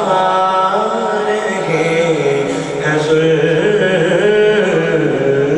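A man's voice chanting a slow religious melody into a microphone, drawing out long held notes that waver up and down in pitch.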